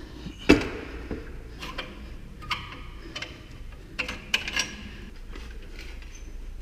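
Metal knocks and clinks from a Yamaha Ténéré 700's stock exhaust pipe being twisted and worked loose from a joint where it sits tightly wedged. The sharpest knock comes about half a second in, with more clinks around two and a half and four seconds in.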